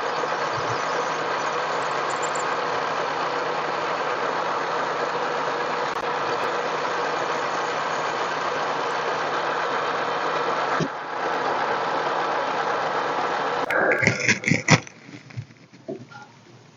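Harbor Freight mini lathe running steadily under a cut, a steady motor hum with a faint whine, dipping briefly once. Near the end come about a second of loud knocks, then the machine noise stops.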